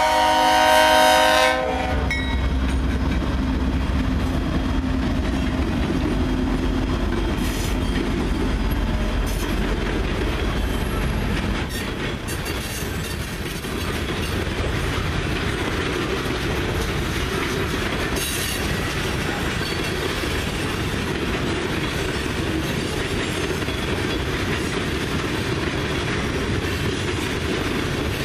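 Air horn of a GE C44-9W diesel locomotive sounding a chord that cuts off under two seconds in. Then the heavy rumble of the passing lead locomotives, the C44-9W and an EMD SD60M, gives way to freight cars, covered hoppers and tank cars, rolling steadily past with a clickety-clack of wheels over rail joints.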